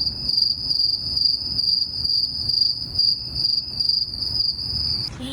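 Crickets chirping in a steady, evenly pulsing high trill that starts abruptly and cuts off abruptly about five seconds in: the stock 'crickets' effect for an awkward silence, with a low background rumble underneath.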